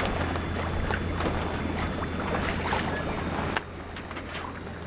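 Water splashing and slapping against a sailboat's hull under way in light wind, with a steady low rumble of wind on the microphone. It drops abruptly to a quieter level about three and a half seconds in.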